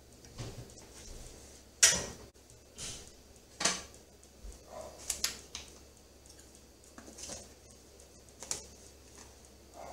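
Kitchen utensils, plates and pans clattering as food is plated and moved: a string of separate sharp knocks and clinks, the loudest about two seconds in.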